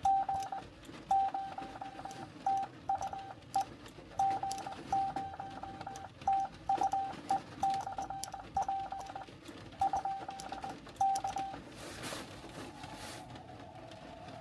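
Morse code (CW) tone from a Xiegu X6100 transceiver, a single steady pitch keyed in dots and dashes, calling a station; the keying stops after about eleven seconds, followed by a short rush of noise and then steady receiver hiss.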